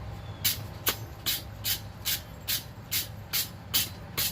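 Quick, even hand-tool strokes on a red-hot mild-steel block, about two and a half a second, each a short, sharp hiss over a low steady hum.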